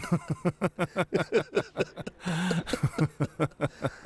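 A man laughing heartily in a long run of short bursts, about six a second, with a drawn-out stretch a little past the middle.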